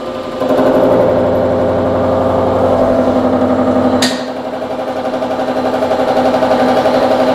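Knee milling machine's spindle running at about 660 RPM with a 2.5-inch carbide face cutter taking a light cut across a steel block, a steady machine sound with an even pulse. A sharp click comes about four seconds in, after which it goes quieter for a moment and builds again.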